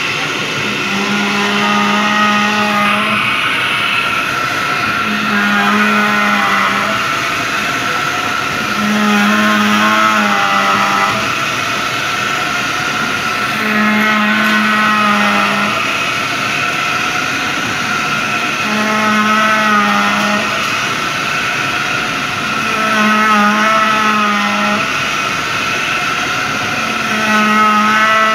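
Lathe running while it works a CNG compressor cylinder liner: a steady machine sound with a wavering pitch, and a low hum that swells for about a second and a half roughly every four to five seconds.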